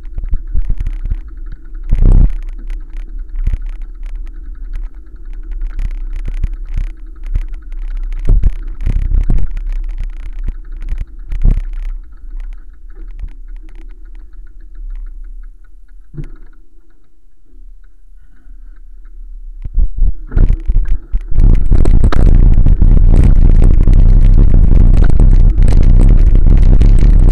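Ride noise on a bicycle-mounted camera: low wind rumble on the microphone with frequent knocks and rattles from the bike over the road surface. About two-thirds of the way in, the wind buffeting turns loud and continuous, overloading the microphone.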